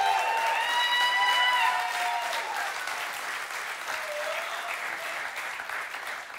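Church congregation applauding and cheering, with several long shouts and whoops over the first two seconds; the applause slowly dies down toward the end.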